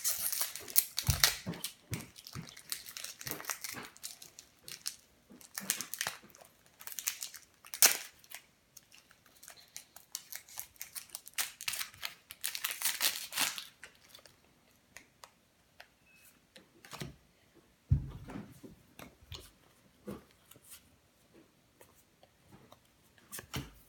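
Foil wrapper of a Pokémon booster pack being torn open and crinkled, then scattered clicks and light taps of the trading cards being handled, with a single thump about three-quarters through.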